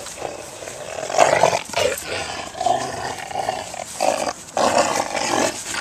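Rottweiler growling while gripping a chunk of wood in its jaws during tug-of-war play, a run of rough growls with short breaks.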